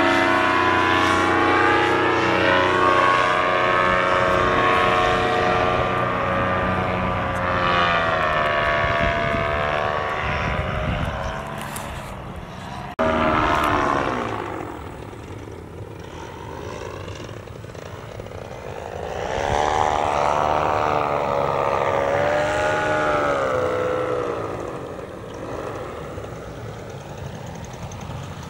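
Paramotor engine and propeller running in flight, its pitch bending up and down as it passes by and the throttle changes. It comes and goes in loudness, loud at the start and again about two thirds of the way in, and quieter near the end.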